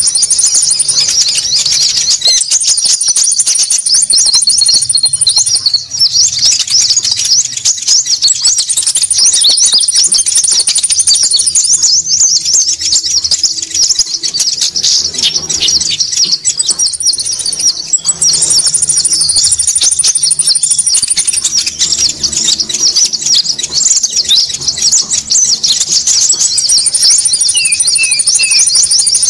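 Bird-trapping lure recording of konin calling noisily: a dense mass of rapid, high chattering calls, with a thin, very high buzzing note held for a second or two that comes back every few seconds.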